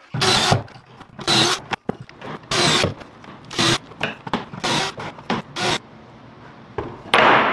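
Cordless drill boring pocket holes through a Kreg pocket-hole jig into wood, in six short bursts. About seven seconds in there is one loud thump.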